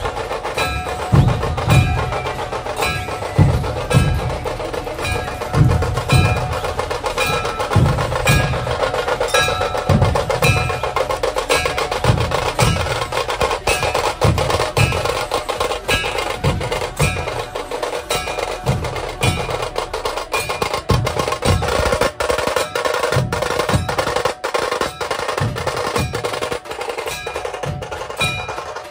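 Dhol-tasha drumming: big barrel dhol drums beating heavy low strokes under a fast, constant tasha drum roll, with sharp high strikes on a regular beat. The deep dhol strokes fall away about three-quarters of the way through, leaving the roll and the high strikes.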